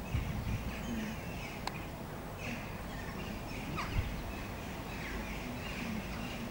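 Birds calling repeatedly in short, falling calls over a steady low background rumble, with a single sharp knock about four seconds in.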